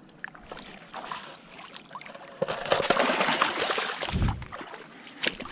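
A hooked carp splashing in shallow water as it is pulled to the shore by hand on the line: light sloshing at first, then about two seconds of heavy splashing in the middle that ends with a dull thump.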